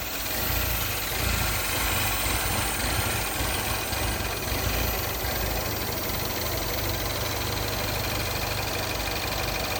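Mini R60's N18 1.6-litre turbo four-cylinder engine idling steadily, without its high whistle. With the oil dipstick pulled, the crankcase vacuum left by a failed PCV valve diaphragm is relieved, and the whistling stops.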